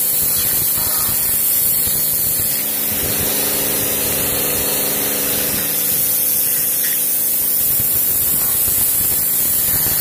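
Electric pressure washer with a rotating tip blasting water onto a flounder, scaling it: a loud, steady hiss of spray over a constant hum from the machine.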